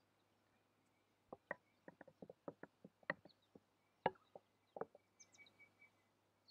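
A quick, irregular run of light wooden knocks and taps, about fifteen over three and a half seconds, as a piece of dough is pressed out and handled on a wooden cutting board on a wooden table.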